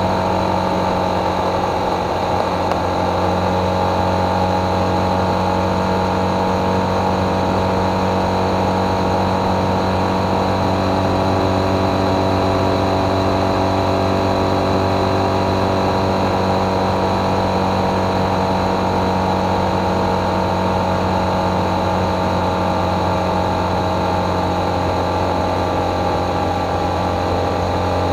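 Motorcycle engine running at a steady cruising speed, its note holding an even pitch.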